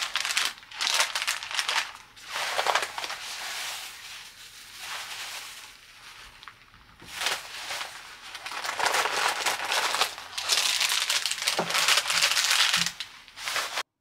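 Plastic packaging crinkling in irregular bursts as a bag is handled, with a couple of soft knocks near the end.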